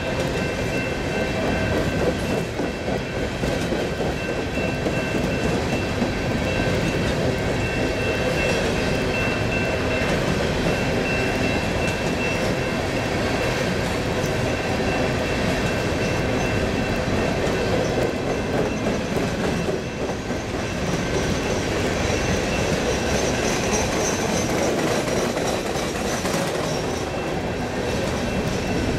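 Freight train rolling past steadily, its wheels clacking over the rail joints, with a thin high squeal from the wheels on the rails.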